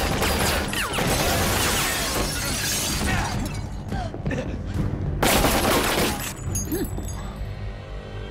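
Action-scene sound effects of glass shattering in a long, loud crash, then a second crash about five seconds in, over a dramatic music score.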